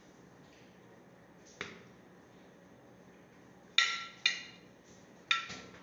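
Metal spoon clinking against a glass jar and a glass baking dish: five sharp clinks that each ring briefly, a faint one about a second and a half in and four louder ones in the second half.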